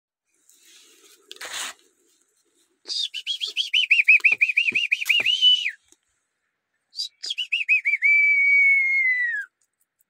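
Whistling in two phrases: a fast warbling trill, then after a pause another trill that settles into a long held note falling off at the end. A brief rustle comes just before, about one and a half seconds in.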